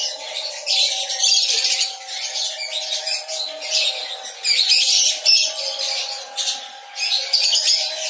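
A colony of lovebirds chattering: many shrill chirps and squawks overlapping in bursts, easing briefly about seven seconds in.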